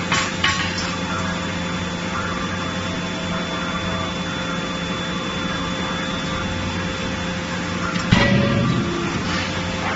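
Steady hum of forging-line machinery, with a couple of sharp knocks near the start. About eight seconds in comes one heavy blow from the 31.5 kJ CNC die forging hammer on the red-hot chain-link blank, ringing briefly.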